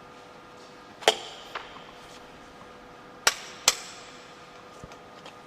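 Sharp clicks and knocks of hard parts being handled. One loud click comes about a second in and a fainter tap follows shortly after. Two more loud clicks come close together just after three seconds.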